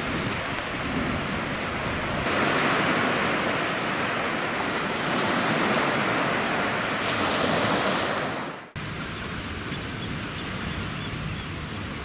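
Sea surf washing in with wind on the microphone: a steady rushing noise that grows louder about two seconds in, then drops off abruptly after about eight and a half seconds to a quieter steady rush.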